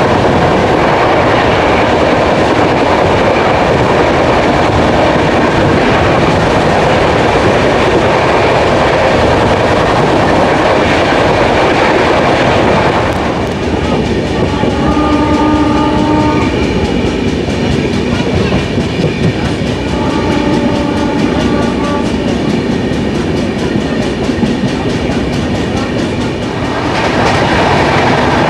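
Double-decker express coaches running at speed, heard from an open coach door: a steady rush of wheels on rails and wind. About halfway through the rush eases and a train horn sounds two long blasts, each about two seconds, a few seconds apart.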